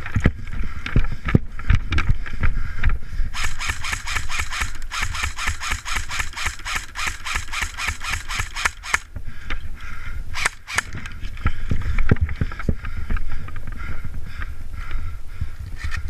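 Wind and handling noise on a body-worn camera microphone as the player moves forward. For about five seconds in the middle comes a fast, even clatter, and a sharp snap follows a little after ten seconds in.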